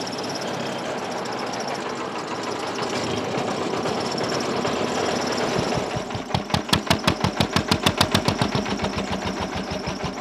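Engine of a jugaad sugarcane-juice cart running and driving the roller cane crusher. For about the first six seconds it is a steady noise, then it turns into a strong, regular chugging of about seven beats a second.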